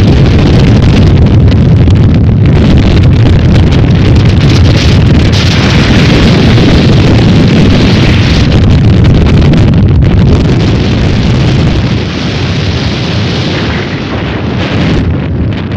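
Storm-force mountain wind buffeting the microphone: a loud, continuous rush of noise, heaviest in the low end, easing a little after about eleven seconds.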